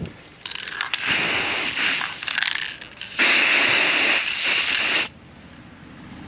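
Aerosol spray paint can spraying in two hissing bursts, the second a steady spray of about two seconds that stops suddenly.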